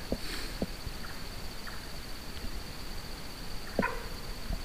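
Night insects trilling steadily at one high pitch, with a few soft knocks early on and a short sharper sound a little before the end.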